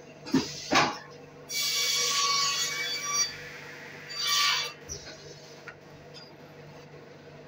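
Hundegger CNC timber-joinery machine at work over a steady machine hum. Two sharp knocks come about half a second in, then its saw cuts through a timber beam for about two seconds with a ringing whine over the noise. A second, shorter burst follows about four seconds in.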